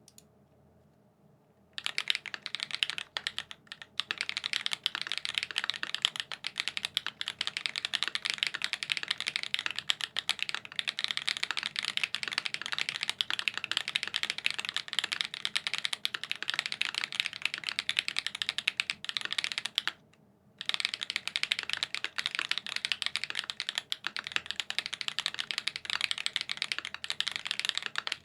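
Fast continuous typing on a TX Classic TKL mechanical keyboard with lubed SWK X OUTVA Black tactile switches on a PVC plate, under GMK Olivia keycaps, giving a dense run of muted clacks. The typing starts about two seconds in and pauses briefly once, about two-thirds of the way through.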